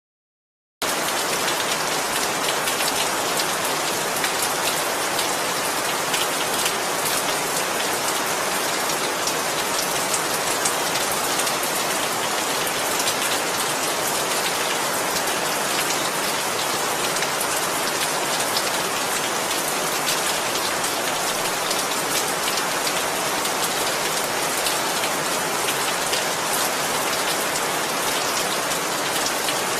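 Steady rain falling: a dense, even hiss of drops with fine patter, starting suddenly about a second in after a moment of silence.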